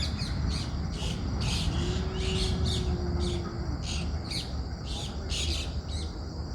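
Birds chirping in short, high calls repeated about twice a second, over a steady low rumble.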